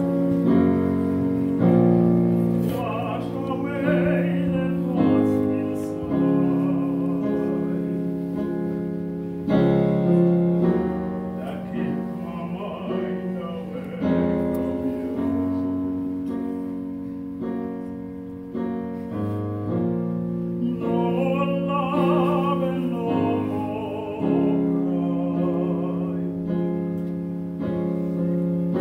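Male vocal quartet singing a cappella in close harmony, in a classical choral style: held chords that shift every second or two, with a higher voice wavering in vibrato above them at times.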